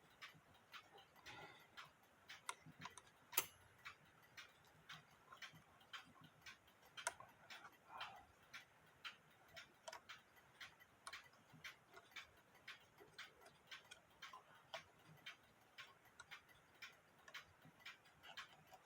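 Mechanical alarm clock movement ticking faintly and evenly, about three ticks a second, with a couple of louder single clicks from the mechanism being handled.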